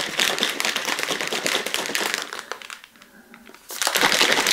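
Ice cubes rattling fast and hard inside a plastic shaker bottle as it is shaken. There is a short pause about three seconds in, then it starts again.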